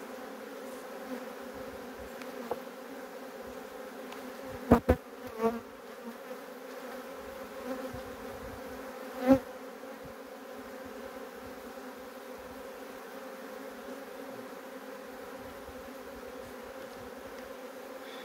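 Honeybees buzzing steadily over an opened hive. A few sharp knocks and clicks come about five seconds in and again near nine seconds as wooden frames are pried loose and lifted out.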